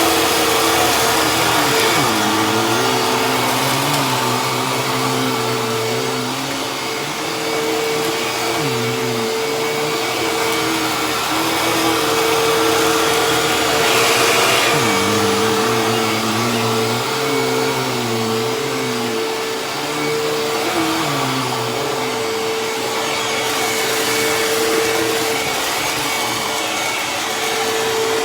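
Hoover Tempo bagless upright vacuum cleaner running continuously while picking up confetti, a steady motor whine over airflow noise, with lower tones wavering up and down in pitch.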